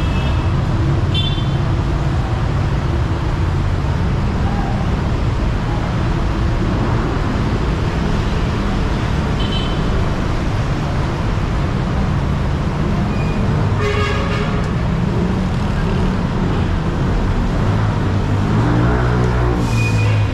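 City street traffic: a steady rumble of vehicle engines, with a car horn sounding once for about a second past the middle and a few short high beeps. Near the end a vehicle's engine note rises and falls as it passes close.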